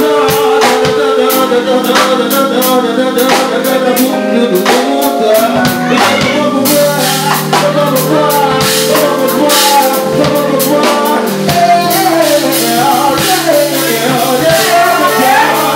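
Live soul music: a male vocalist singing over a small band of keyboard, guitar and saxophone, with a steady percussion beat.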